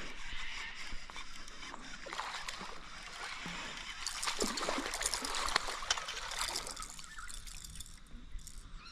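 Water splashing and dripping in irregular bursts as a hooked Murray cod is brought in and landed, busiest from about four to seven seconds in.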